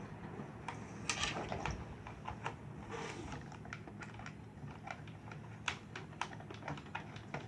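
Irregular light clicks and taps of plastic toy helicopter parts being handled and fitted together.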